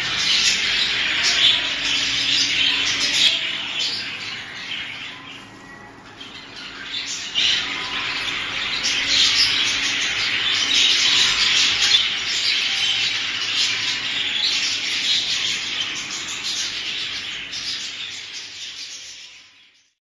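A flock of caged budgerigars chattering and chirping without pause, thinning out about five seconds in and fading away at the very end.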